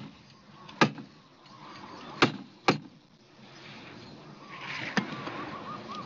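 Staple gun driving staples through plastic trough liner into a wooden 2x4 edge: about five sharp snaps at uneven intervals, two of them close together a little after two seconds in.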